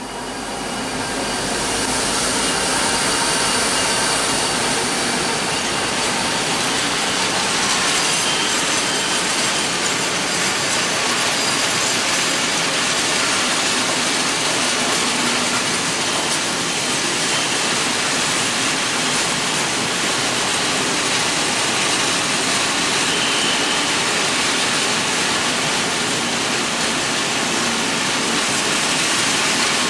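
Freight train of loaded open coal wagons rolling past, a steady rumble and rattle of wheels on the rails. It rises over the first couple of seconds, then holds steady.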